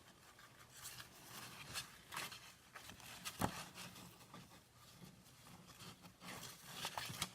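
Faint rustling of paper pages and thread being handled while the binding thread is tied off, with light scattered ticks and one sharper tick about three and a half seconds in.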